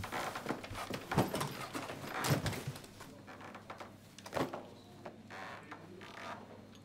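A few knocks and rustles as a briefcase and papers are picked up and handled, loudest about a second in, a little over two seconds in, and again near the middle.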